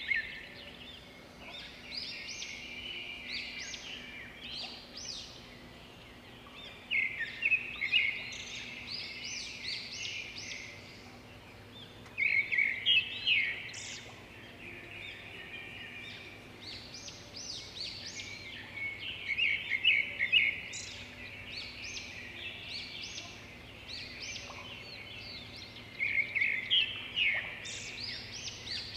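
Birds singing: bursts of quick, repeated chirps and trills that swell every few seconds and fall back between them, over a faint steady hum.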